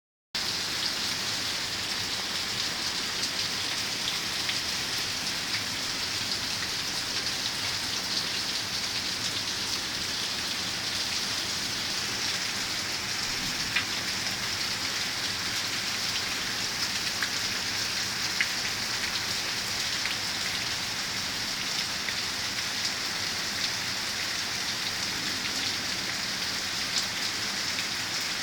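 Hard rain pouring down in a steady, even hiss, with a few sharp ticks of drops or hailstones striking now and then.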